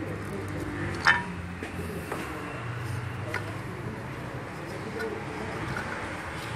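Small metal parts and hand tools being handled on an engine: one sharp metallic clink about a second in, the loudest sound, then a few lighter clicks over a low steady hum.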